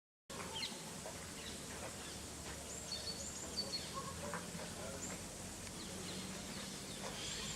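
Outdoor ambience with small birds chirping, short high calls scattered throughout over a low, steady hum.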